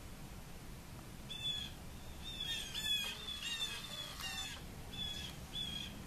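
A songbird calling: a run of short, high notes, some with quick sweeps, repeated about eight or nine times from about a second in until near the end, over a faint low steady background rumble.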